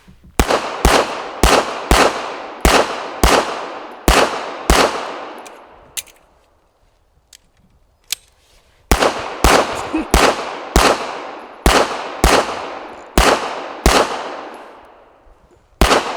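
M-Arms Kratos 9mm pistol fired in steady strings, about two shots a second, each shot echoing and fading away: about eight shots, a pause broken by a couple of sharp clicks, then about seven more and a last one near the end.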